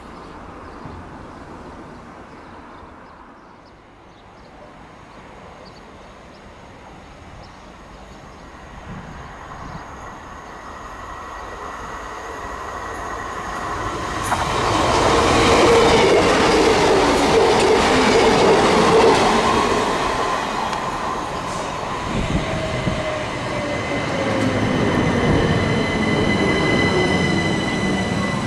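A passenger train comes up the line, growing louder over about ten seconds until it is close and loud. High, steady squealing tones then sound from the wheels or brakes. From about two-thirds of the way in, a motor whine falls steadily in pitch as the train slows.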